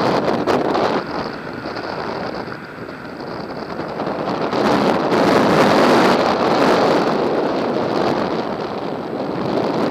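Wind rushing over the microphone of a camera held out on a pole during paragliding flight, a steady noise that dips about three seconds in and swells loudest around the middle before easing toward the end.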